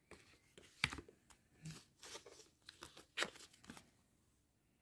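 Rustling and crackling of craft-kit packaging as a cardboard embroidery-floss organizer card is handled, with sharp crinkles about a second in and again past three seconds, stopping about four seconds in.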